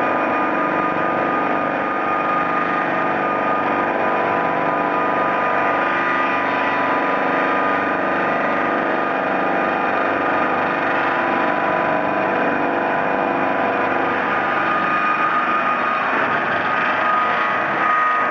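Two-saw cant-making sawmill machine (SBR-2P-1000) running steadily, a continuous mechanical drone with a steady whine from its spinning circular saws.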